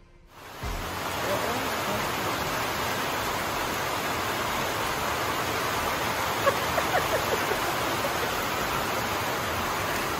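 Heavy rain falling steadily, a dense even hiss. A few faint ticks can be heard about two-thirds of the way through.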